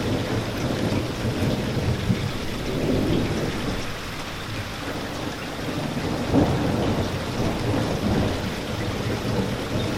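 Steady heavy rain with low rolling thunder rumbling underneath, the rumble swelling about six seconds in.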